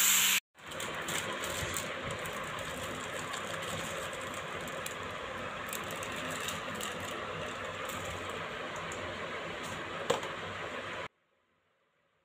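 A steady, machine-like running noise with one sharp knock about ten seconds in, cutting off suddenly near the end.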